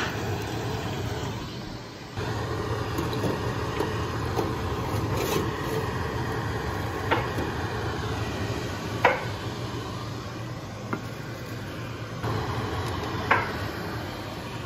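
Metal clinks as a wire skimmer knocks against a deep-fryer's wire basket while scooping out pieces of fried fish, about five sharp clinks a second or two apart over a steady hum and hiss.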